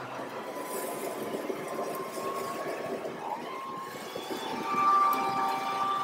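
Handheld gas leaf blower running at about a quarter throttle, blowing dry leaves across a lawn. Its engine whine rises in pitch about three to four seconds in and gets louder near the end.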